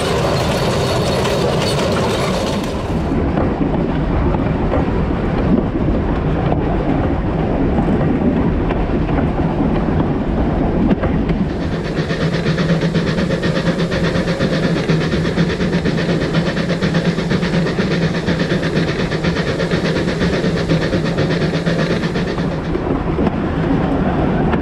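Narrow-gauge steam train running along the line, a continuous rumble and clatter of wheels and running gear heard close to the locomotive. The sound changes abruptly a few seconds in, again around halfway and near the end, and a steady low hum runs through the middle stretch.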